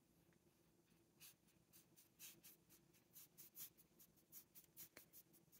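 A paintbrush swishing ink back and forth across a paper swatch card, a quick series of faint scratchy strokes at about four a second, starting about a second in.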